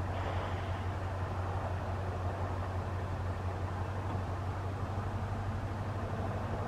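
Motor vehicle driving over frozen lake ice: a steady low engine drone under an even rushing noise.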